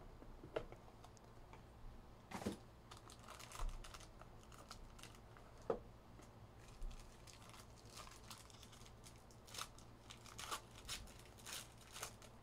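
Faint scattered clicks, rustles and crinkles of hands tearing open a cardboard trading-card box and handling the foil-wrapped pack inside. A few louder clicks come about two and a half and six seconds in, and the crinkling gets busier near the end.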